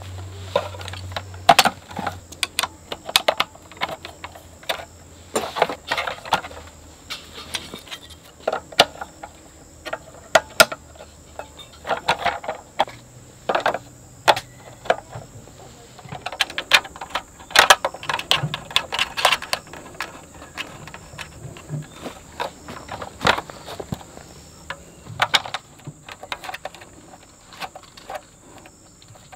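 Irregular clicks, knocks and light clatter of camping gear being handled and put together, likely the parts of a camp table being assembled, over a steady high-pitched tone.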